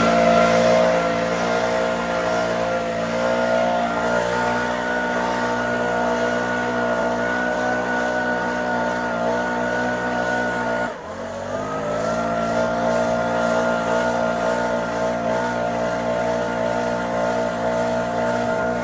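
Gas-powered backpack leaf blower running at high throttle, a steady engine drone with air rushing from the tube. About eleven seconds in the throttle is let off for a moment: the engine drops in pitch, then revs back up and holds steady again.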